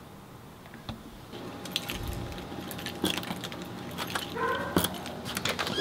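A bunch of keys jangling and clicking in a front-door lock as the door is unlocked. A dog whines briefly behind the door near the end.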